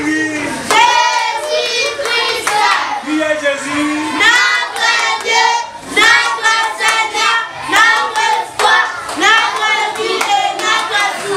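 A group of children singing together and clapping their hands along with the song.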